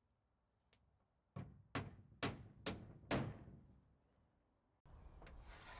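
Hammer driving a nail into plywood siding: five sharp blows about half a second apart.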